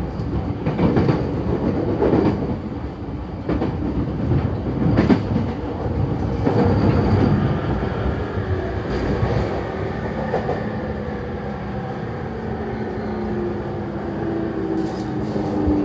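Running sound heard on board a JR East E231 series Yamanote Line motor car as it slows down: wheel and rail clatter in the first half, then a whine that slowly falls in pitch. This is the abnormal braking noise that the uploader suspects comes from the gearing.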